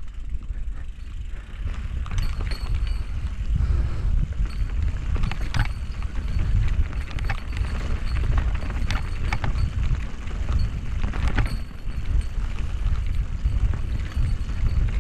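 Mountain bike riding down a dirt singletrack, heard from a rider-mounted camera: a steady low rumble of wind on the microphone and tyres on dirt, with scattered sharp clacks and rattles from the bike over bumps and roots.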